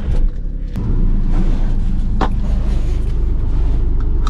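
Maruti Suzuki hatchback's engine just after starting, heard from inside the cabin: it settles in the first second and then idles steadily. A couple of light clicks sound over the idle.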